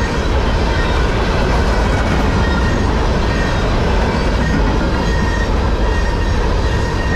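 Freight train cars rolling past close by, a steady loud rumble and rattle of wheels on rail. A faint high squeal comes and goes.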